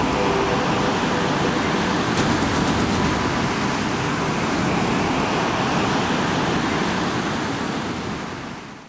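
Ocean surf breaking and washing up the beach: a steady rushing that fades out near the end.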